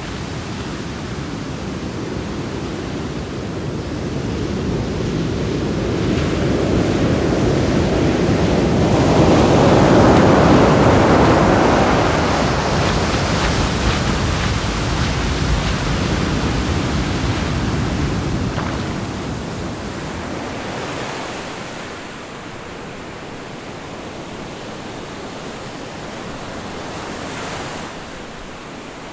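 Sea surf washing against rocks: a steady rush of churning water that swells to its loudest about a third of the way through, then eases off and drops lower in the last third.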